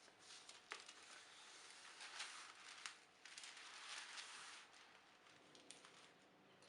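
Faint rustling and crinkling with a few light clicks, coming in soft swells about a second long.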